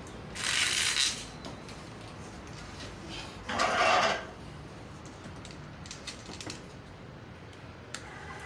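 Two short noisy bursts about three seconds apart, then a click near the end as the electric drain-cleaning machine is switched on and its motor starts to run with a steady hum.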